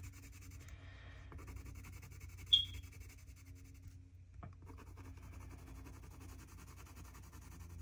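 Faber-Castell Polychromos colored pencil scratching and rubbing faintly on paper as a swatch of colour is filled in, with a brief high squeak about two and a half seconds in.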